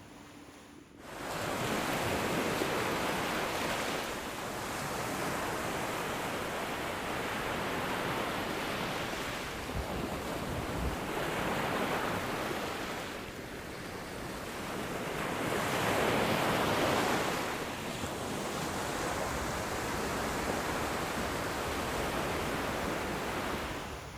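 Ocean surf: waves breaking and washing ashore, the rush swelling and fading every few seconds.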